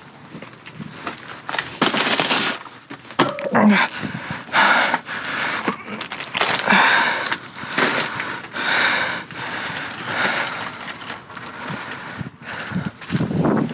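Plastic bags and food packaging rustling and crinkling in irregular bursts as finds are handled and stuffed into a car.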